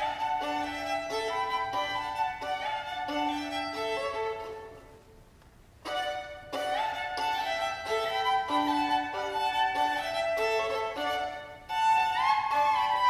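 Unaccompanied violin playing a melody in double stops over a repeated low held note. The playing fades into a brief pause about five seconds in, then resumes and grows louder near the end.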